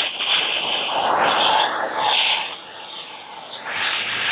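Handheld propane torch running, a rushing hiss that swells and eases as the flame is swept over the carved wood to scorch its surface.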